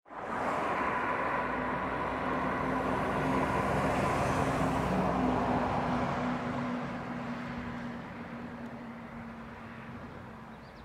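A motor vehicle passing on the road, loudest about four to five seconds in and then fading away.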